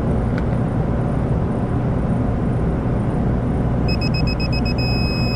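Yellow Jacket digital torque wrench alarm: about four seconds in, a rapid run of short high beeps turns into one continuous beep. This signals that the flare nut has reached the torque set on the wrench, 55.6 foot-pounds. A steady low rumble runs underneath.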